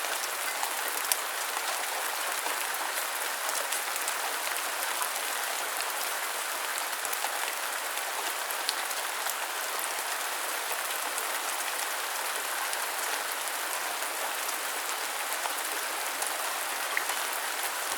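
Steady rain falling: an even hiss of many small drop ticks, with a few louder single drops now and then.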